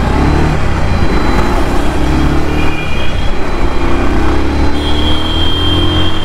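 Bajaj Pulsar motorcycle's single-cylinder engine accelerating through the gears, its pitch rising several times and dropping back at each upshift.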